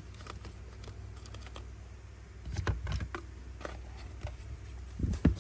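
Light clicks and taps of metal Zippo lighters being handled, with a busier patch of clicking partway through and a couple of sharper knocks near the end.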